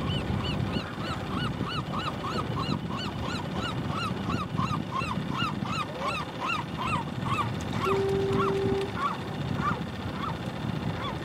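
Gulls calling, many short rising-and-falling cries in quick succession, over the low rumble of a boat engine. A brief steady hum sounds about eight seconds in.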